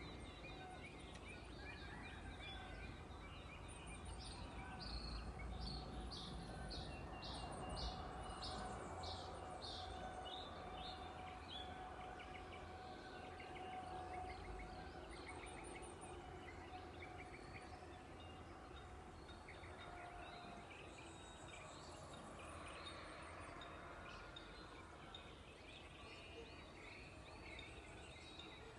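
Dawn chorus of many birds calling on farmland. About four seconds in, one bird repeats a high note roughly twice a second for some seven seconds, and a faint steady hum sits under the calls.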